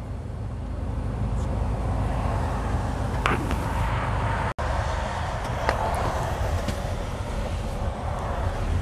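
Steady rumble inside a lorry cab: the truck's diesel engine running as it creeps along in stop-and-go motorway traffic.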